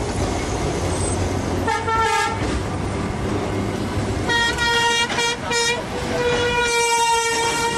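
A horn sounding at one steady pitch over a low running rumble: a short blast about two seconds in, three quick toots a little past four seconds, then a long held blast from about six seconds on.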